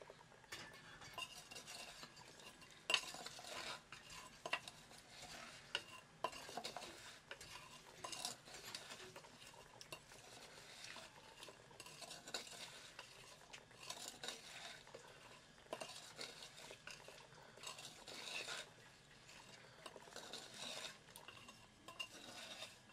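Metal spoon stirring and scraping inside a small clay pot, mixing a wet spice paste, in repeated irregular strokes with a sharp clink about three seconds in.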